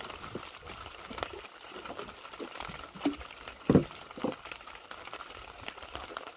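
Light drizzle pattering on the sea surface and the wooden boat, a steady fine hiss with scattered small ticks. Two short thumps come a little past the middle.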